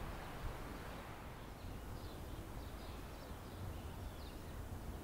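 Outdoor garden ambience: a steady low rumble with a few faint, short bird chirps scattered through it.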